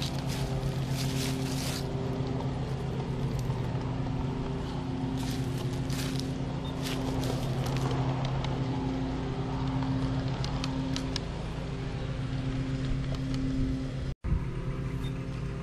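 G-scale model container train rolling along outdoor track: a steady hum with a low drone, with scattered sharp clicks from the wheels on the rails. The sound cuts out for an instant near the end.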